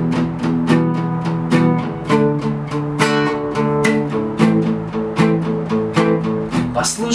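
Nylon-string acoustic guitar strummed in steady downstrokes, about two to three a second, with some strokes accented. The chords are E minor, changing to D about four seconds in and to A minor near the end.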